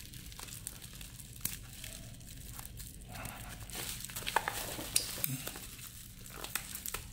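Bubble wrap and plastic packaging being handled and pulled open, crinkling with scattered sharp crackles.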